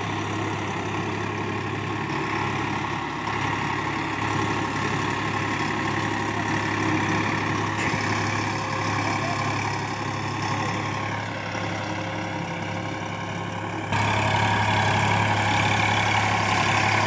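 Small DC motor of a homemade matchbox toy tractor running steadily with a whirring hum while it pulls a cultivator through sand. Its pitch sags and recovers a little past the middle, and it turns suddenly louder near the end.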